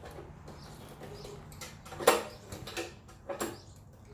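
A few light metallic clicks and taps as small metal parts are handled while the key is worked out of the shaft keyway, the sharpest about two seconds in.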